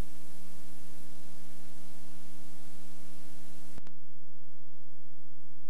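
Steady electrical mains hum with hiss over a blank recording. About four seconds in there is a single click, and after it the hiss drops while the hum carries on.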